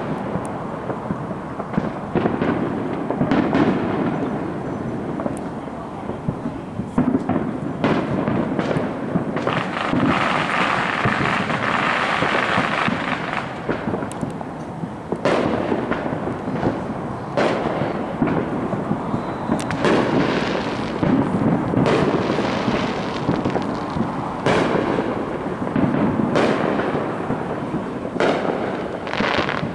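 Fireworks going off one after another: a run of sharp bangs and booms with rumbling between them, and a spell of dense crackling a little before the middle.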